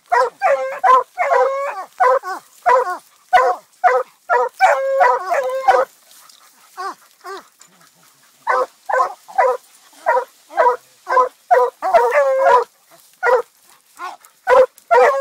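Dog barking treed: a rapid run of short chop barks mixed with longer drawn-out bawls, the treeing bark of a hunting dog holding game up a tree. The barking stops for about two seconds around the middle, then starts again.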